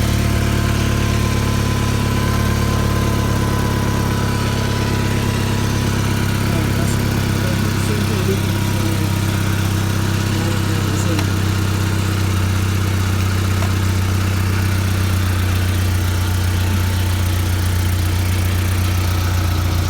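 VW 1.8T turbocharged four-cylinder engine idling steadily with its new 3-inch downpipe fitted. The owner hears no exhaust leak at the turbo flange where a stud broke.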